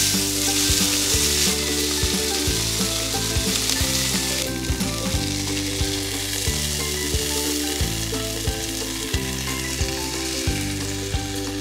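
Beef steaks sizzling as they fry in butter in a hot pan, a steady hiss that thins a little in the second half. Background music plays underneath.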